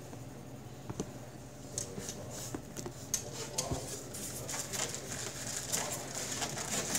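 Packaging handled by hand: a light knock as a model train car is set down, then scattered rustles and crinkles as a plastic-wrapped car is pulled from its styrofoam insert.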